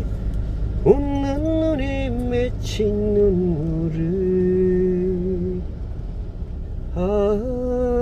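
A person sings a slow melody unaccompanied, holding long notes that step up and down in pitch and pausing for about a second near the end. Under it runs the steady low rumble of a car driving.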